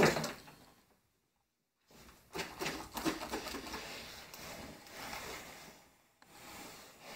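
Steam iron knocking down onto the table and sliding, pressing over cotton fabric to flatten a sewn welt.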